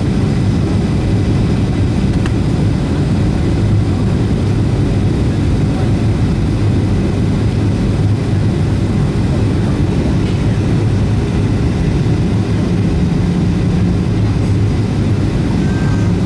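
Steady drone of a Boeing 737-700's CFM56 turbofan engines heard inside the cabin on approach: an even rushing noise over a low hum.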